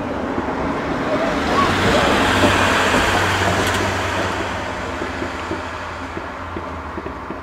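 A road vehicle passing by: engine and tyre noise swells to a peak about three seconds in, then fades away.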